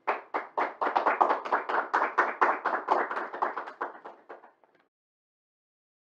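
Hands clapping in applause, about five even claps a second, thinning out and stopping a little before five seconds in.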